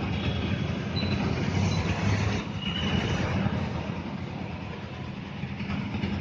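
Steady low engine rumble and hum over general traffic-like noise, with a few brief high tones.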